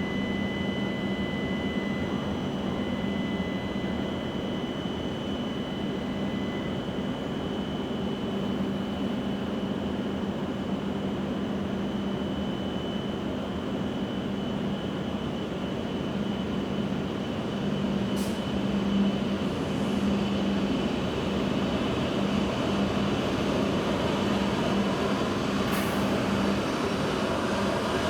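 E7 series Shinkansen train at the platform: a steady electrical hum over a constant rush of noise, growing a little louder in the second half.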